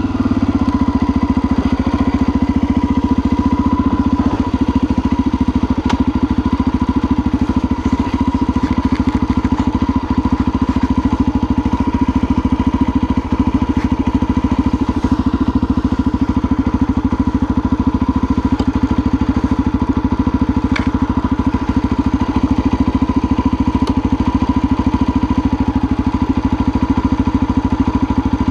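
Honda XLR 250 enduro motorcycle's single-cylinder four-stroke engine idling at a standstill, its beat even and unchanging.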